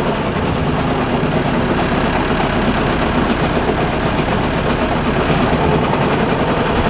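Hired motor launch's engine running steadily as the boat cruises, a rough, fast-pulsing low rumble.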